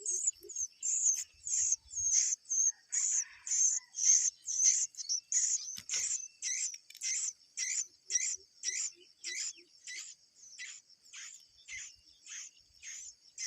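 Bulbul at the nest giving short, high-pitched calls about twice a second in a steady series, growing fainter in the second half, over a constant high insect drone.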